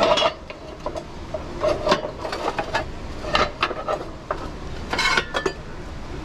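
Cast iron skillets and pans clanking and scraping against one another as they are lifted and shifted in a crate: a series of sharp knocks and scrapes, some with a short metallic ring, loudest near the start, about three and a half seconds in and around five seconds in.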